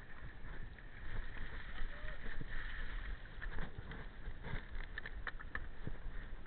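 Mountain bike rolling down a rocky, wet trail: tyres crunching and the bike rattling over stones, with a run of sharp knocks about halfway through.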